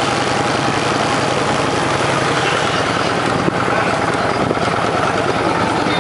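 Motorcycle engine running steadily at low speed, a dense unbroken mechanical noise with a low hum.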